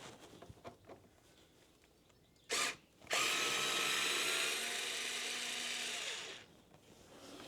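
Small cordless electric screwdriver with a T25 Torx bit backing out a motorcycle radiator cover screw. There is a brief blip of the motor, then it runs steadily for about three seconds and gets a little quieter partway through.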